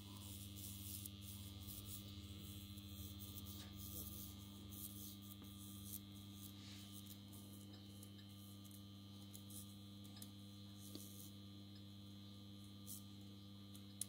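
Faint, steady electrical mains hum, with faint scratchy rubbing and small ticks as an acid-soaked rag wad is worked around a bearing's steel outer race during electrolytic zinc plating.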